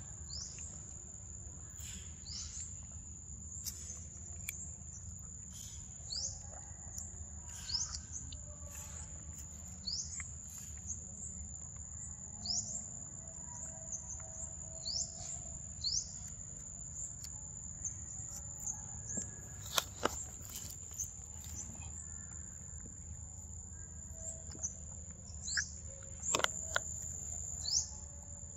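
Forest ambience: a steady high-pitched insect drone, with a bird giving short downward-sliding chirps every second or two. A few sharp clicks stand out in the second half.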